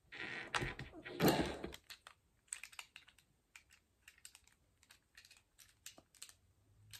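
Plastic action-figure parts being handled and fitted together: a rustle of handling over the first two seconds, then scattered light clicks of plastic on plastic.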